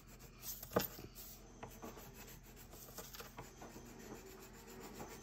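Crayon rubbing on paper in faint scratchy strokes, colouring in and blending. A single sharp tap a little under a second in.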